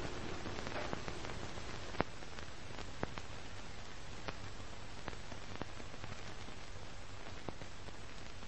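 Steady hiss of crackle-style surface noise, with scattered sharp pops about once a second, the worn-film sound of an old silent-era print.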